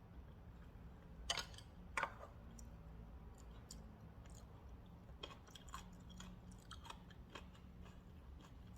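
Two sharp clicks a second or two in, then a run of light clicks and crunches.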